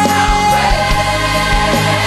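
Background music: a contemporary Christian worship song, a singer holding one long note over a band with a steady kick drum.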